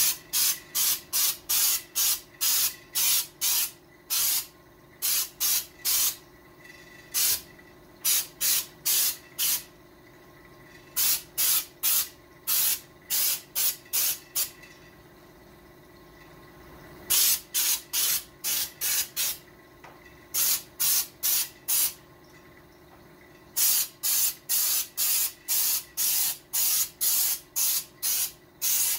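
Handheld trigger sprayer spraying paint in quick squirts, about two a second, in runs of several with short pauses between runs.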